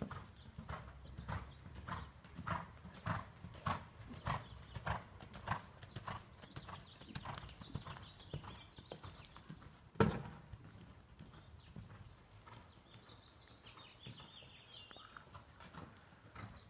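Hoofbeats of a ridden horse moving over arena sand, a steady rhythm of about three strikes a second that grows fainter after about seven seconds. A single sharp knock about ten seconds in stands out as the loudest sound.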